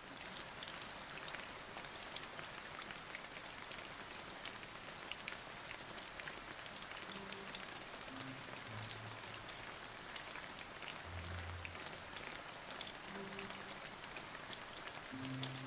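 Steady rain falling: an even hiss dotted with the ticks of individual drops. From about seven seconds in, faint low held music notes sound beneath it.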